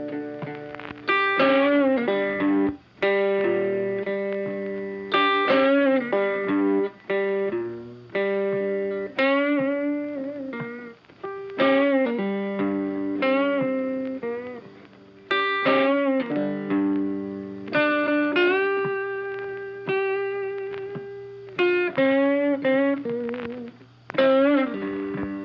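Background music: electric guitar with distortion and effects, plucked and strummed notes that ring out and bend in pitch.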